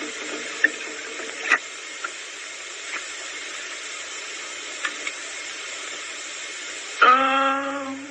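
Steady hiss with a few faint clicks, the noise of an old film soundtrack, as the last guitar notes fade out. About seven seconds in, a voice sings one held note.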